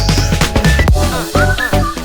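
Background music with a steady beat, bass and a melody line.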